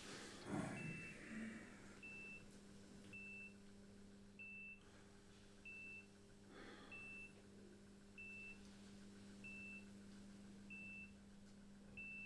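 Hospital bedside patient monitor beeping: short high tones, one about every 1.2 seconds, ten in all, over a low steady hum. A couple of soft rustles come near the start and about halfway.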